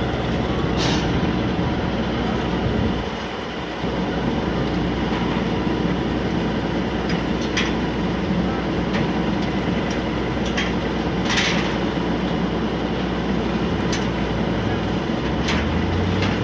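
Engine of a Ferris wheel's drive running steadily as the wheel turns, with a few sharp metal clanks. The engine note drops briefly about three seconds in and rises near the end.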